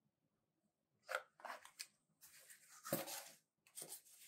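Plastic shrink-wrap crinkling and cardboard scuffing as a shrink-wrapped Blu-ray box set is handled and lifted out of a cardboard mailer box. The rustles come in a series of short bursts starting about a second in.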